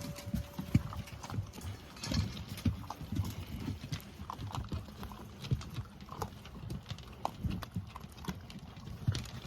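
Dogs' paws and claws tapping irregularly on a hard floor as they move about, a steady scatter of light knocks.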